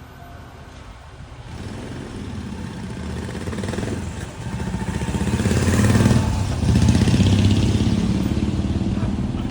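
A JR Kyushu 817-series electric train passing over the crossing: its rumble and rail noise build up, are loudest about six seconds in, then ease slightly.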